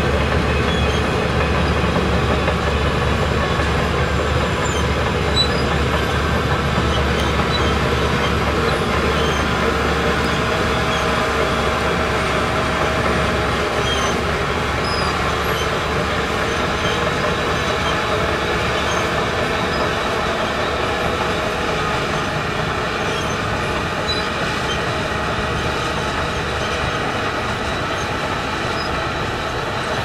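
Shantui DH17 crawler bulldozer working soil: diesel engine running steadily while the steel tracks travel, the whole sound slowly growing quieter as the machine moves off.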